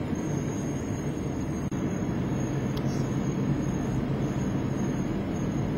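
Steady engine and tyre noise of a car driving slowly, heard from inside the cabin.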